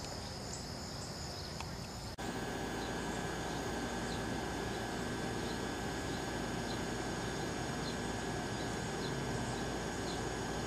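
Steady outdoor ambience with insects chirping. The sound cuts abruptly about two seconds in and resumes slightly louder, with faint high chirps repeating.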